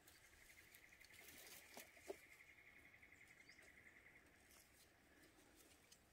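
Faint, rapidly pulsing insect trill, one steady note that starts about a second in and stops after about four seconds, with a couple of soft clicks around two seconds.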